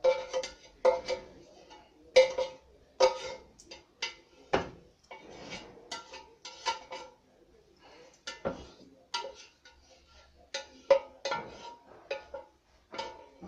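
A slotted spatula knocking and scraping against a metal square pan held over a frying pan, giving repeated irregular clanks, each with a short ring.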